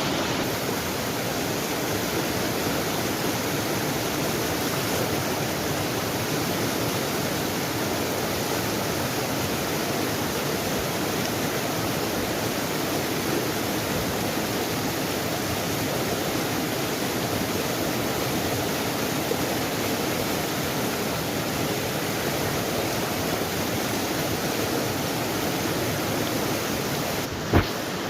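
Rushing stream water, a steady unbroken rush, with one sharp click near the end.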